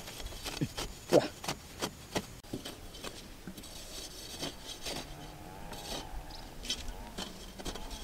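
Scraping and knocking of a rod and hands working dry soil and grass, with several sharp taps in the first couple of seconds, then quieter scraping.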